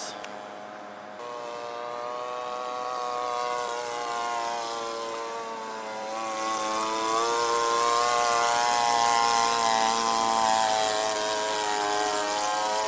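Radio-controlled model airplane's engine and propeller running in flight, the pitch slowly rising and falling as the plane passes and turns. It steps up in loudness about a second in and is loudest in the second half.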